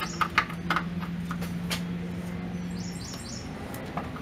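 A few light metallic clicks as a hand wrench is fitted onto the upper shock absorber mounting nut, over a steady low hum that stops about three seconds in, with faint high chirps.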